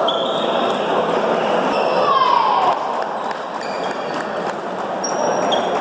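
Table tennis balls clicking off bats and tables, scattered sharp ticks over a steady hubbub of voices in the hall, with a short squeak sliding down in pitch about two seconds in.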